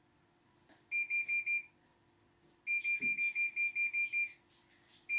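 CNY E900 embroidery machine's control-panel beeper: rapid high beeps, about five a second, as its touch-screen scroll keys are pressed. A short run comes about a second in and a longer one starts just before the three-second mark.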